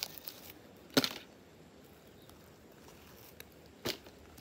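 Two sharp knocks: a loud one about a second in and a weaker one near the end, with a faint tick between, over quiet room tone.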